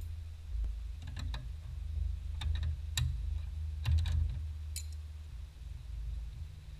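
A metal wrench clicking and clinking against the brake line fittings on a brake master cylinder: a few scattered, irregular metallic clicks over a steady low hum.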